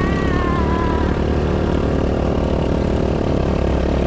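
ATV engine running steadily as the quad rides along a dirt trail, heard close up from a camera mounted on the machine. A brief high, slightly falling tone sounds in the first second.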